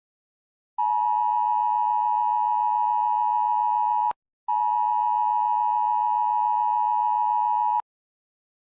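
Emergency broadcast attention tone: a steady electronic tone sounded twice, each about three seconds long, with a short break between.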